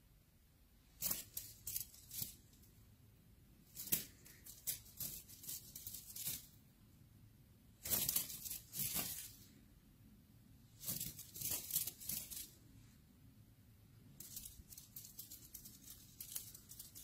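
Crinkly feather teaser toy rustling in short bursts of quick crackles every few seconds as it is waved and batted at.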